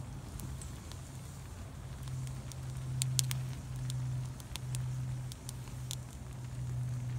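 Wood campfire crackling, with scattered sharp pops at irregular intervals over a low steady hum.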